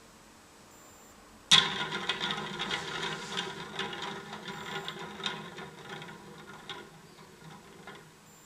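3D-printed toy windmill spinning on its printed hub: a sudden start about a second and a half in, then a rattling whir with many small ticks that fades as it slows to a stop near the end.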